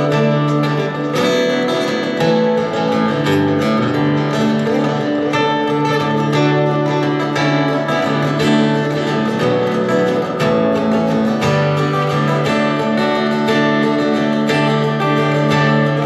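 Solo acoustic guitar playing steadily strummed chords with ringing notes, an instrumental passage closing out a folk song.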